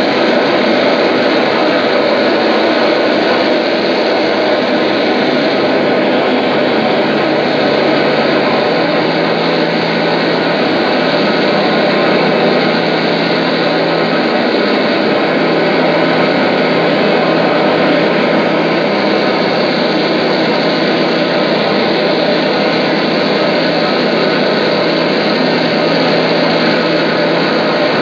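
Loud, dense droning noise from a live experimental performance, unbroken throughout, with a low steady hum underneath that steps to a slightly different pitch a few times.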